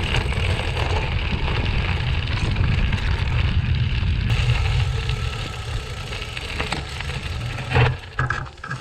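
Riding a gravel bike: wind rumbling on the microphone over a steady crunching of tyres on gravel. A single knock comes near the end, after which the noise eases off.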